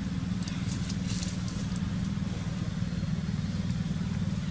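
Engine running steadily with a low, even drone, with a few faint crackling ticks about a second in.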